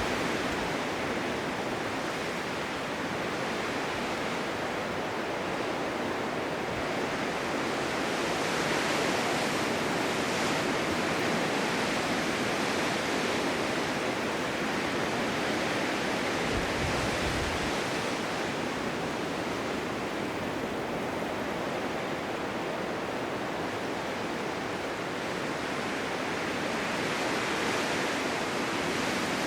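Blizzard wind rushing steadily, swelling and easing slowly, with a brief low rumble of a gust a little past halfway.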